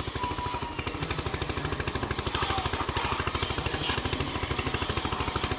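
Motor-driven pressure-washer machine running steadily, with a rapid even pulsing of about a dozen beats a second.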